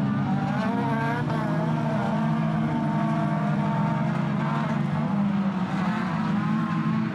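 Engines of several near-production autocross race cars revving hard together, their pitches rising and falling over one another as the drivers work the throttle and shift gears.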